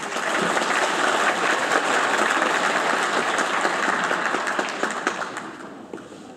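Audience applauding: dense, steady clapping that dies away over the last second or so.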